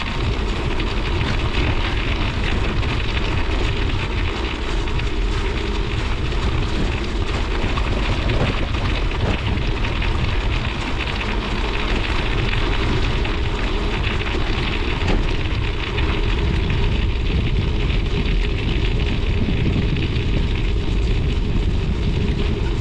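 Studded bike tyre rolling over rough lake ice, a steady rolling noise, with wind buffeting the microphone.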